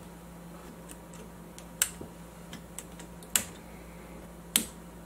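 Small incandescent bi-pin dial lamps being pushed into the metal spring clips of a Marantz receiver's dial-lamp bracket: three sharp clicks over about three seconds as each one snaps in, with lighter ticks between.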